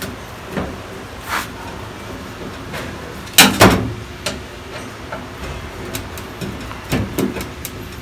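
Screwdriver working a screw into the sheet-metal front panel of a front-load washing machine: scattered clicks and scrapes of metal on metal, with two sharp knocks, the loudest, about three and a half seconds in, and more clicks near the end.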